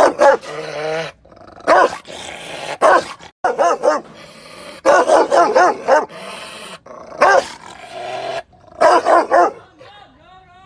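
Dog barking angrily in about seven bursts of two to four quick, loud barks, with short pauses between.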